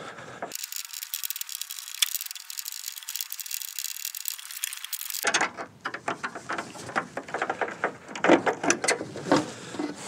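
A Phillips screwdriver backing out the long headlight adjuster screw on a Ford Super Duty headlamp. A fast, thin ticking for several seconds, then irregular clicks and knocks of the plastic headlight housing as it is worked free.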